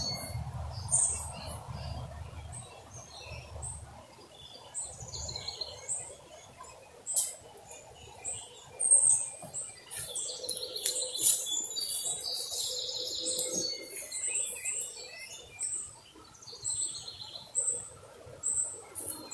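Several wild birds chirping and calling, many short high calls overlapping one another, with a few sharp clicks in between.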